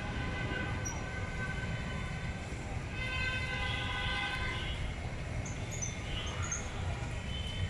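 Steady city traffic rumble with vehicle horns, one long horn blast sounding from about three to five seconds in.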